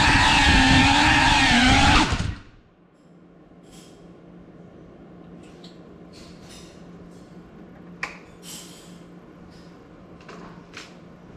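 FPV quadcopter's brushless motors and propellers whining at a high, buzzing pitch, then cutting out abruptly about two seconds in as the drone stops. Afterwards only a faint low hum and a few faint ticks remain.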